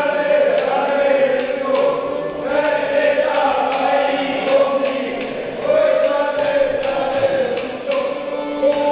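A group of women singing a traditional Romanian folk song together in unison, a slow chant-like melody of long held notes.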